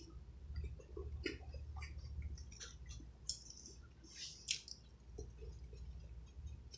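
Close-up chewing of toast with a soft, creamy topping: wet mouth smacks and small crunches at irregular intervals, the sharpest a little past the middle, then a fresh bite near the end.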